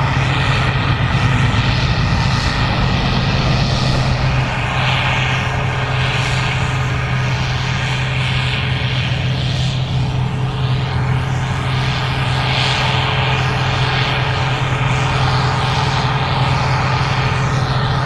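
Gleaner R65 combine running steadily while harvesting corn: a loud, constant engine-and-machinery drone with a deep steady hum, and a hiss that swells and fades a few times.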